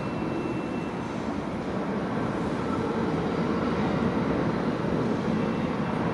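R68 subway train approaching through the tunnel into the station: a steady low rumble that grows louder as it nears.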